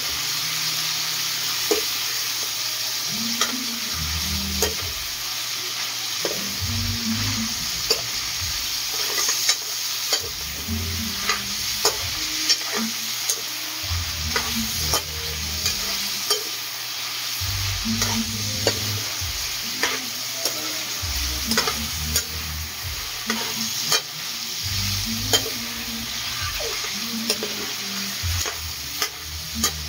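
Pork pieces sizzling in hot oil in a wok, being browned, while a spatula stirs and turns them, with frequent short clicks and scrapes of the spatula against the pan.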